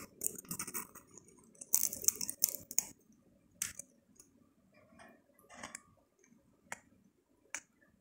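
African grey parrot's beak picking through and cracking sunflower seeds in a plastic feeder cup: sharp clicks and cracks, a quick run of them about two seconds in, then single clicks spaced apart.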